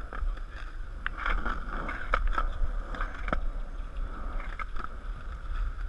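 Skateboard wheels rolling over concrete: a steady rumble with a few sharp clicks as the wheels cross the joints between the slabs.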